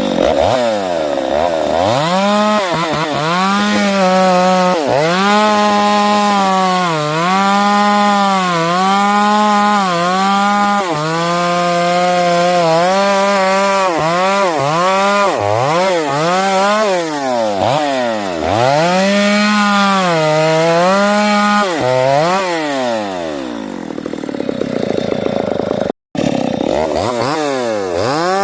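Stihl MS 250 two-stroke chainsaw cutting sengon wood, the engine revving to full throttle and sagging again and again as the chain bites and frees. About 23 seconds in it drops toward idle, cuts out for a moment, then revs up again near the end.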